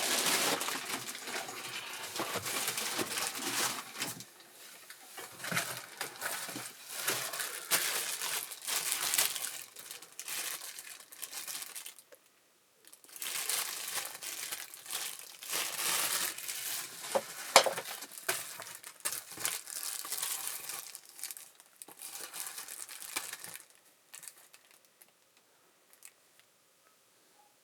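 Packaging being unwrapped and handled, crinkling and tearing in irregular bursts, with a brief pause partway through and dying away near the end.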